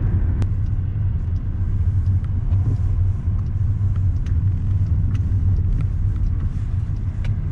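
A car driving, its steady low road rumble running throughout, with a few faint ticks.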